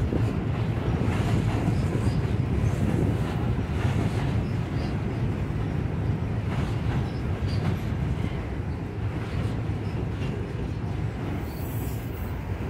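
Freight train of hopper, tank and box cars rolling across a steel truss bridge overhead: a steady low rumble with repeated clanks and rattles from the cars. It eases slightly toward the end.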